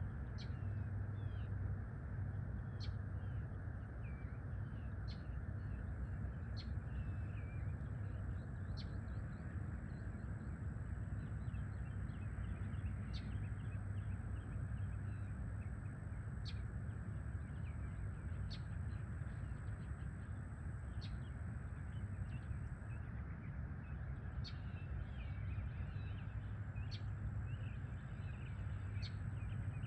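Birds chirping and calling at sunrise, with a short sharp chirp every second or two among softer twittering, over a steady low rumble of background noise.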